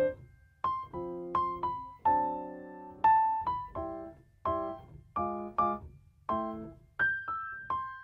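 Background piano music: single struck notes and chords at a gentle pace, each ringing briefly and fading.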